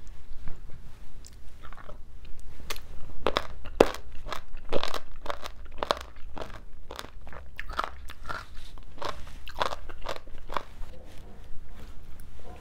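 Person chewing a mouthful of spicy braised seafood with crisp bean sprouts: a quick run of crunches, about two or three a second, thinning out near the end.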